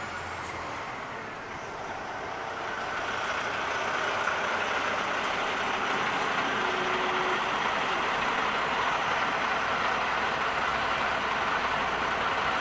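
Approaching diesel freight train: a steady noise of locomotive engines and wheels on rail that grows louder over the first few seconds and then holds. A brief faint tone sounds about halfway through.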